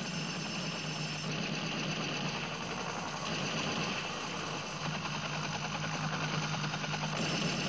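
Steady buzzing drone from a metal band's amplified instruments, growing slightly louder toward the end.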